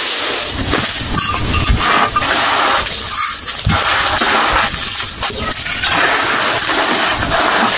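Rice being washed in a metal pot: grains and water swishing, with irregular clinks and knocks against the pot.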